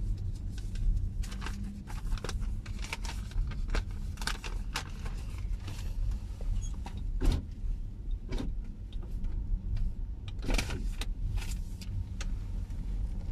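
Cabin sound of a Toyota sedan moving slowly: a steady low engine and road rumble with scattered irregular clicks and knocks. The loudest click comes just past halfway, with another cluster towards the end.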